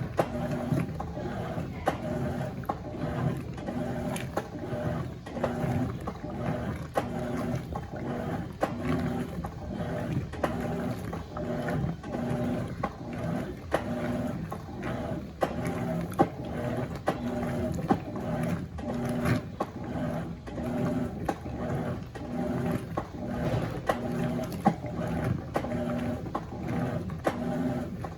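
Electrolux LF90 top-loading washing machine agitating a load of towels in its pre-wash, the motor and agitator going back and forth in an even repeating rhythm with water sloshing.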